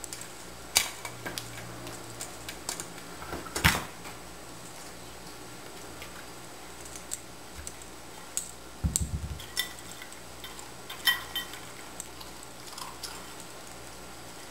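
Metal muffin tin knocking and clattering on a tile floor as a dog noses and paws balls out of its cups: irregular clicks and knocks, the sharpest about a second in and near four seconds, and a cluster with a dull thump around nine seconds.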